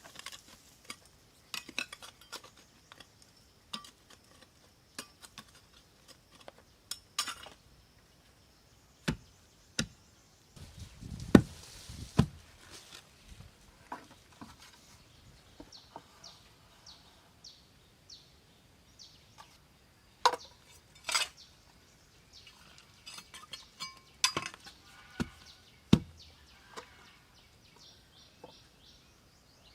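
Scattered clinks, taps and knocks of hands-on work with tools or utensils, with a heavier thud about eleven seconds in.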